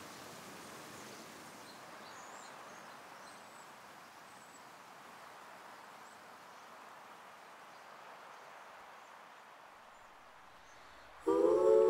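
Faint, steady rush of a mountain creek, with a few faint, high bird chirps. Near the end, music with held, hummed notes cuts in suddenly and is much louder.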